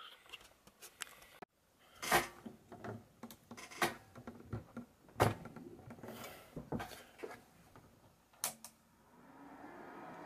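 Scattered clicks and knocks of a three-prong power cord being handled and plugged into the back of a UNI-T UTP305 bench power supply, the loudest about five seconds in. Near the end a steady hum sets in and grows as the supply is powered up.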